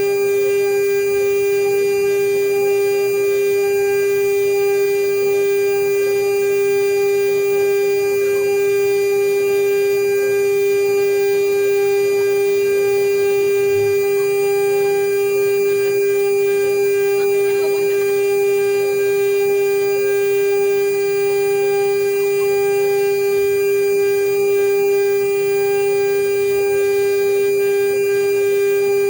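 CNC router spindle running with a steady high whine while it mills a marine-aluminium seal plate.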